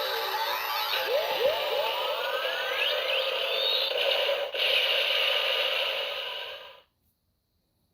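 Bandai DX Cyclone Riser toy transformation belt playing its electronic finishing-attack sound effects, with several rising swooshing glides. The effects cut off suddenly about seven seconds in.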